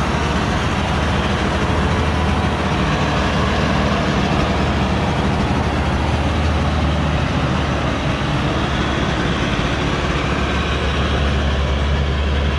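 Diesel engine of a cargo truck loaded with acacia logs, running steadily under load as the truck crawls through deep mud, a continuous low drone. The low engine note grows heavier near the end.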